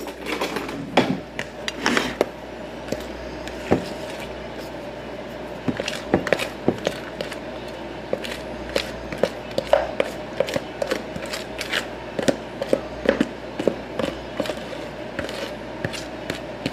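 Brownie batter being scraped out of a mixing bowl into a glass baking dish: a utensil knocking and scraping against the bowl and dish in irregular clicks and taps, a few each second.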